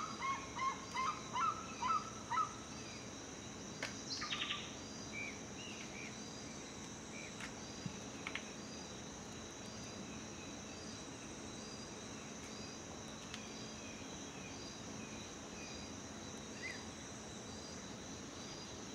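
A bird calling a quick series of short notes, about three a second, for the first two seconds or so. After that a steady high insect drone carries on, with faint chirps about once a second.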